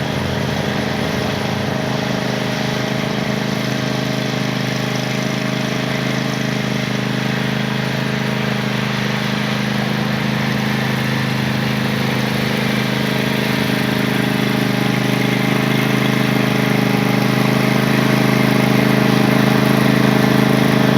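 Small gasoline engine running at a steady speed, getting slightly louder toward the end.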